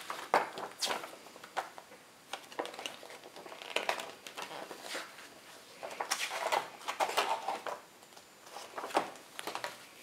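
Glossy paper instruction booklet being handled and its pages turned: dry rustles and flaps in short clusters, with a few light taps.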